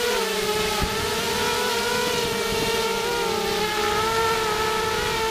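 Whine of a ZMR250 racing quadcopter's four brushless motors and propellers, heard from the camera on board, with the pitch wavering and dipping slightly as the throttle shifts through turns.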